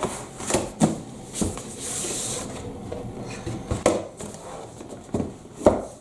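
Cardboard microphone packaging being handled and opened: a series of light knocks and taps, with a brief sliding rub about two seconds in.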